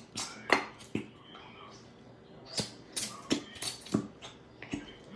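Irregular sharp clicks and sticky pops from hands working glue and slime.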